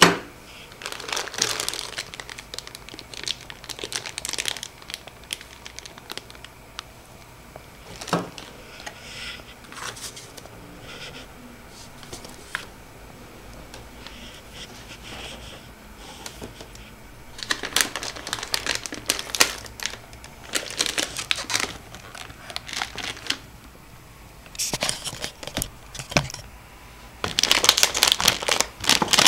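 Crinkling, crumpling handling noise in irregular bursts with quieter gaps, loudest near the end.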